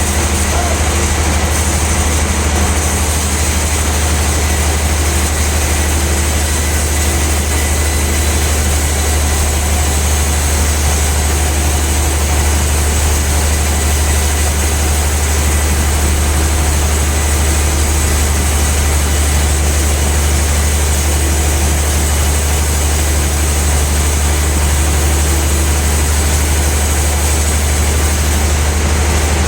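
Sawmill band saw machinery running steadily with a strong, even low hum.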